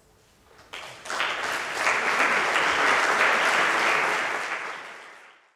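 Audience applauding, starting about a second in, swelling quickly, holding steady and fading out near the end.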